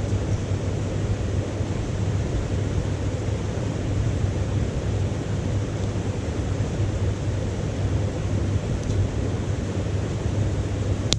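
Wood fire burning in a titanium wood stove under a steady low rushing roar. One sharp crackle of burning wood comes near the end.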